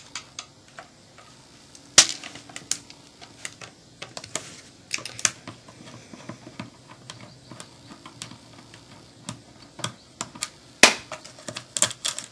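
Irregular small clicks and taps of a screwdriver and hands working a screw out of an airsoft gun's stock mount, with two louder sharp knocks, about two seconds in and near the end.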